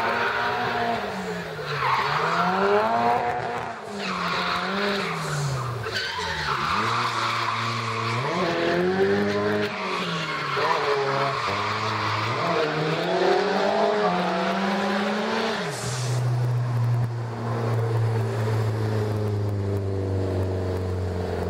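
Nissan Silvia S14 drift car sliding through corners: the engine revs rise and fall over and over, every second or so, over steady tyre screech. About sixteen seconds in the tyre noise stops and the engine holds a steady note.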